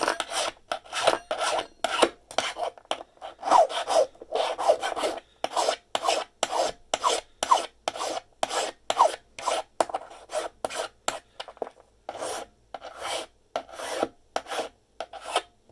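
Hand file rasping back and forth on a brass key blank, about two strokes a second, some strokes with a short squeal, taking the blank's height down.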